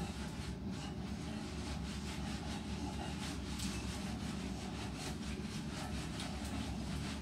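Hands scrubbing shampoo lather into an Alaskan Malamute's wet fur: a quick, irregular run of soft rubbing strokes over a steady low hum.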